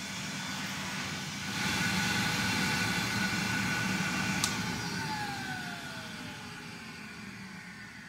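Gordon Major cylinder vacuum cleaner running steadily, then its switch clicks off about halfway through and the motor winds down with a falling whine.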